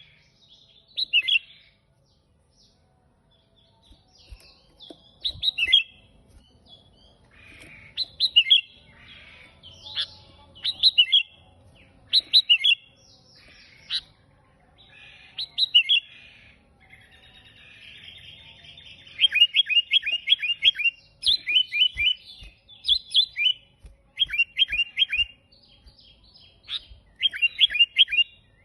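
Sooty-headed bulbul singing: short phrases of quick falling whistled notes, repeated every second or two and coming in a denser run in the last third, with a brief harsh chatter just before that run.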